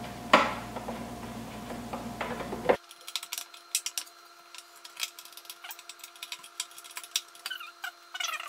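Small sharp clicks and ticks of screws and a screwdriver on a ceiling fan's metal motor housing as the blades are being fastened, with one louder click about a third of a second in.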